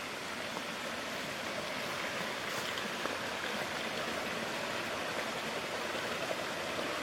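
Steady rush of running water from a creek or waterfall, growing slightly louder, with a few faint clicks over it.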